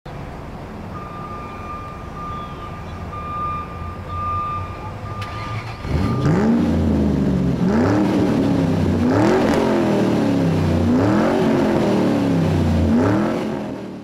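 Race car engine sound effects: a lower rumble at first, then from about six seconds in, loud engines revving up and down over and over. The sound fades out at the end.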